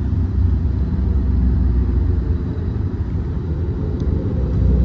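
Steady low rumble of a vehicle driving along a city street, with engine and road noise heard from inside the moving vehicle.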